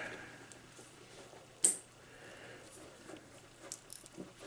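Modular crimping tool working an RJ45 plug onto twisted-pair cable: one sharp click about a second and a half in, then a few faint clicks near the end as the handles are squeezed.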